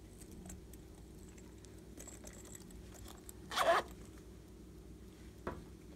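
Zipper on a small plastic character case being pulled: one quick rasp about three and a half seconds in, and a shorter one near the end.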